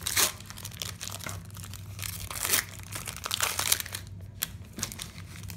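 Foil wrapper of a 2020 Panini Prestige football card pack crinkling and rustling in several bursts as it is pulled apart by hand, fading to lighter rustles after about four seconds.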